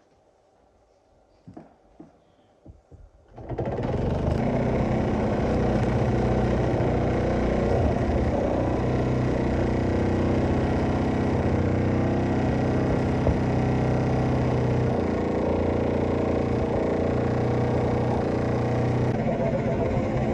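A few light clicks, then about three and a half seconds in a Mamod Minor toy steam engine, with its single oscillating cylinder, starts up and keeps running steadily under steam.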